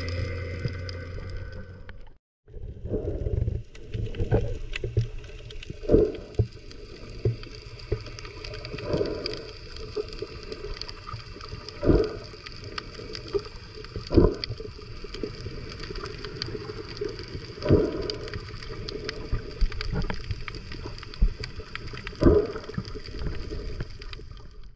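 Muffled underwater sound picked up by a camera below the surface: a steady wash of water with a low whoosh every second or two as swimmers kick and stir the water. A steady hum at the start cuts off about two seconds in.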